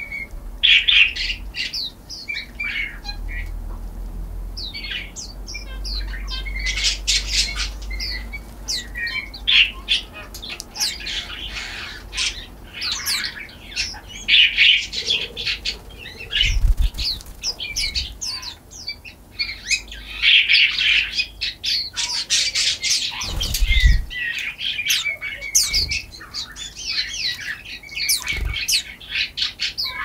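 Small songbirds chirping and calling busily, many short overlapping calls, with a few dull low thumps in the second half.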